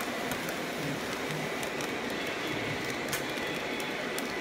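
Model train running on its track: a steady rumble from the wheels and motor with scattered light clicks.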